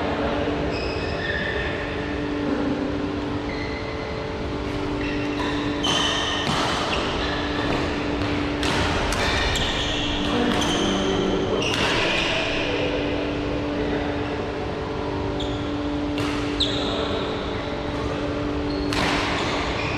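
Badminton rally: sharp smacks of rackets hitting a shuttlecock, a run of them in the middle and a few more near the end, with short squeaks of court shoes on the court mat, over a steady hum of the hall.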